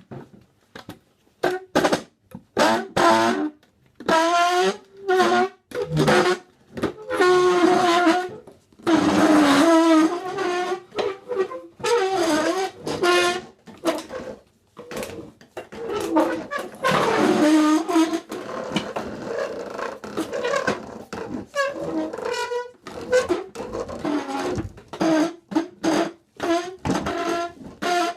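Chairs scraped across a floor in a string of pitched, horn-like squeals and groans, some short and some drawn out for a second or two, with brief gaps between strokes.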